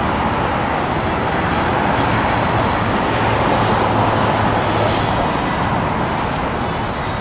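Steady, loud rumble of vehicle noise with a low hum underneath.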